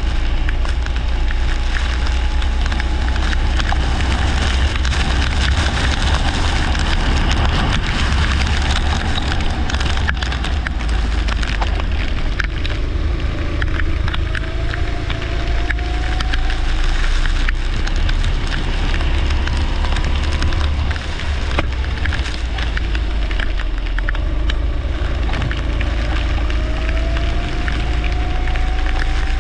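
Leisure rental kart engine running on track, its note rising faintly twice as the kart accelerates. It sits under a loud, steady low rumble and a dense rattling crackle.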